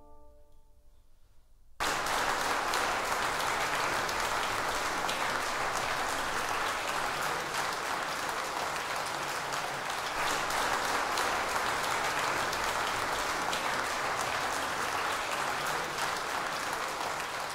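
The final viola-and-piano chord fades into a brief hush, then audience applause breaks out suddenly about two seconds in and goes on steadily.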